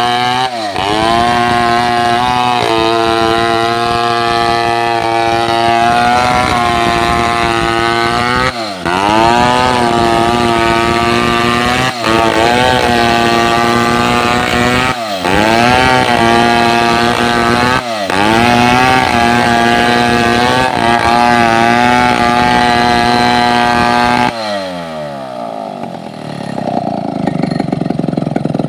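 Two-stroke chainsaw running at high revs, its pitch dipping sharply and climbing back about five times. It then winds down to a lower, rougher idle near the end.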